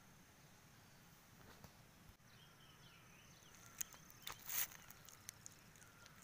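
A quiet background with a faint steady high whine. About four seconds in come a few clicks and a short rustle as wet fish are tipped from a plastic basin onto a banana leaf.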